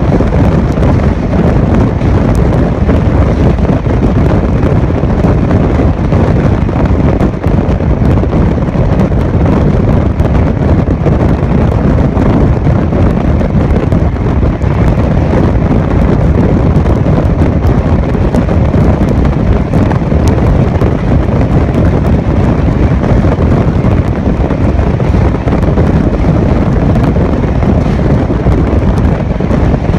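Loud, steady rush of wind buffeting a microphone held outside a fast-moving Gatimaan Express coach, mixed with the train's running noise on the track.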